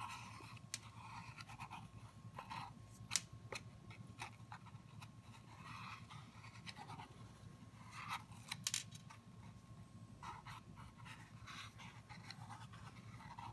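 Faint pencil scratching on paper as it traces around a cardboard toilet-paper roll, with a few small scattered clicks and taps.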